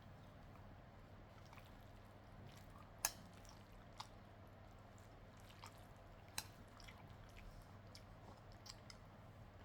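Quiet chewing of stir-fried noodles and crispy pork, with a few short sharp clicks; the loudest click comes about three seconds in.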